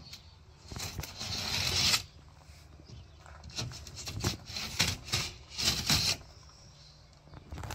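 Utility knife slicing through the paper backing of a snapped plasterboard sheet: one slicing stroke of about a second that stops sharply, then scattered knocks and rustles as the board is handled.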